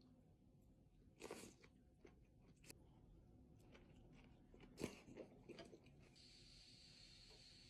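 Faint eating sounds over vegetable soup: a few scattered soft chewing and clicking noises, the loudest about five seconds in. A steady faint hiss starts near the end.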